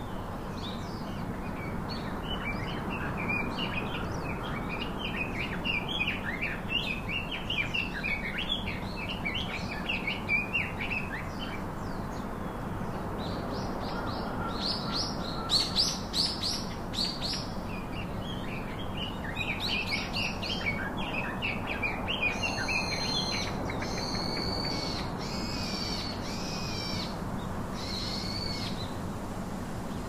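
Caged budgies and cockatiels calling: a dense run of short chirps through the first half, then louder sweeping calls, and in the last third a series of separate repeated whistled calls. A steady hiss lies under it all.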